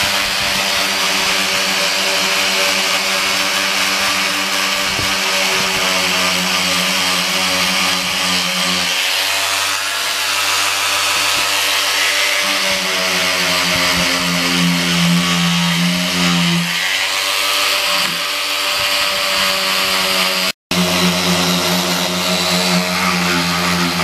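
Porter-Cable angle grinder running steadily, grinding old Bondo body filler off a steel Kawasaki Ninja fuel tank. Its whine sags in pitch as it is pressed into the work about 9 and 17 seconds in, then picks back up; the sound cuts out for an instant about 20 seconds in.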